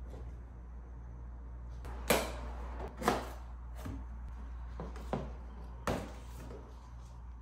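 Cardboard packaging of an iMac box being handled and pulled apart: several sharp scrapes and swishes of cardboard, loudest about two and three seconds in, over a steady low hum.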